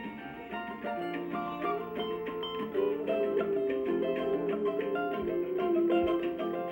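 Cavaquinho played in a pagode groove, quick plucked notes and strummed chords over the song's instrumental backing.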